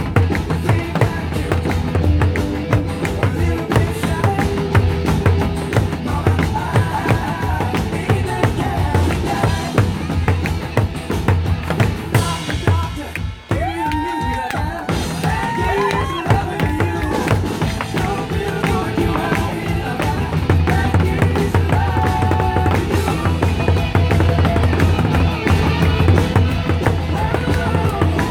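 Nanta drumming played along to a loud recorded song with a steady drum beat and melody; the music drops out briefly about thirteen seconds in.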